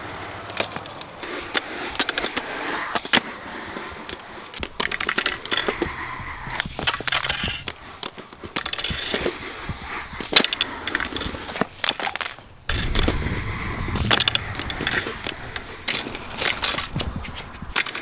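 Skateboard wheels rolling on concrete under a board built on a fishing rod, with frequent sharp clacks and knocks as it is ridden.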